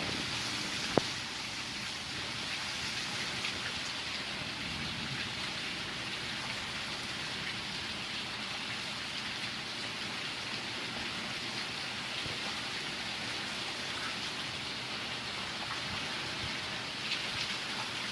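Steady patter and hiss of rain falling, with one sharp click about a second in.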